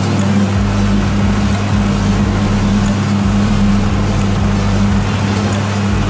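Inboard engine of a traditional abra boat running steadily while under way, a constant low hum.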